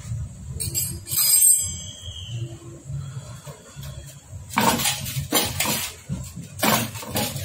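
Metal clinking and knocking as the cylinder head and crankcase of a Hero Splendor Plus engine are handled during assembly, with a short high squeak about a second and a half in and two louder rasping noises in the second half.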